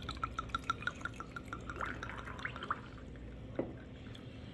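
Wine glugging out of a bottle onto ice in a glass: a quick, even run of glugs, about six a second, that rise in pitch as the glass fills and stop about two and a half seconds in. A light knock follows about a second later.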